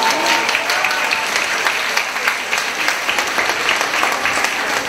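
Audience applauding: many hands clapping steadily throughout.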